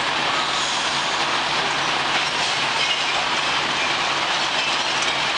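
Mack LE garbage truck with a Labrie split body tipped up, dumping its load: a steady, even noise with a low engine hum beneath.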